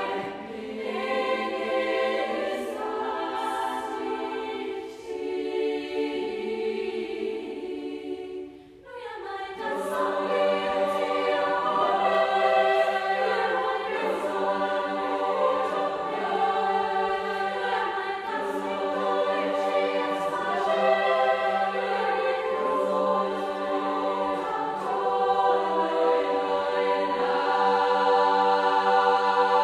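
Girls' choir singing a cappella in close harmony. About nine seconds in the voices thin out and glide upward into a fuller, louder passage, which settles into a long held chord near the end.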